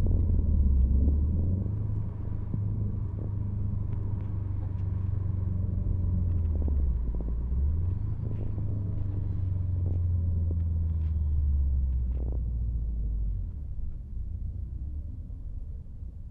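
Subaru Forester SG9's turbocharged flat-four engine, fitted with a GTX3071R turbo, running as the car drives: a deep low rumble whose pitch dips and climbs again twice, once early and once about seven seconds in. It eases off near the end.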